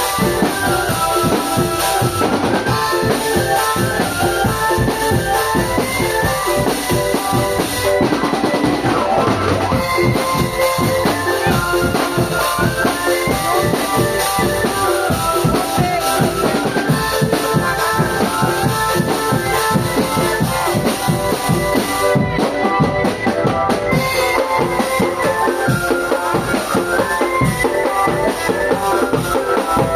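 Marching drum band playing, with bass drums and snare drums beating steadily under a pitched melody that steps up and down.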